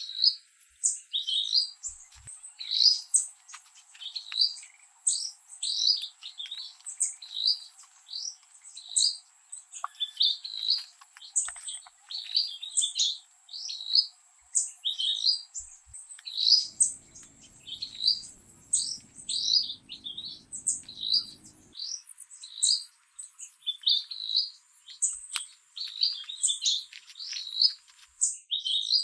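A bird chirping over and over, short high calls repeated about one or two a second.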